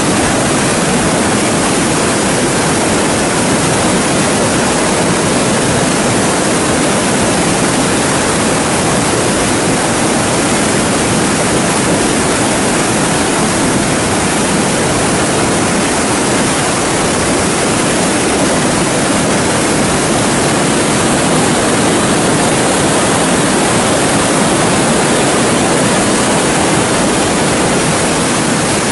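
Floodwater from a rain-filled lake pouring through open sluice gates into a whitewater channel below: a loud, steady rush of water.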